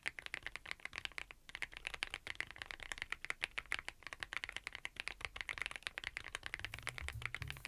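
Fast, continuous typing on a Thinkway TV108 full-size mechanical keyboard fitted with Aurora Ice Cream switches, the key clicks coming in a dense stream with a brief pause about a second and a half in. Near the end, background music with a low bass line fades in under the typing.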